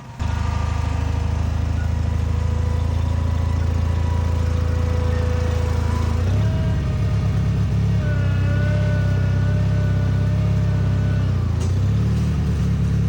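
Small backhoe's engine running hard while its hydraulics lift a load on pallet forks, with a wavering whine above the engine note. The engine note shifts about six seconds in and dips briefly near the end.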